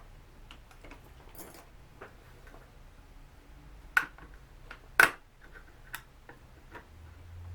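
Small clicks and taps of a jeweler's screwdriver and plastic drone body parts being handled during disassembly, with two sharper, louder clicks about four and five seconds in.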